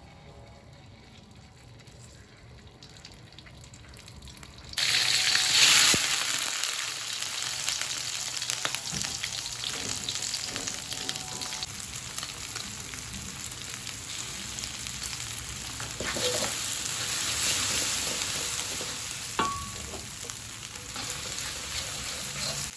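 Ground spice paste of kencur, shallot, garlic and chili frying in hot oil. A loud sizzle starts suddenly about five seconds in and goes on steadily while it is stirred.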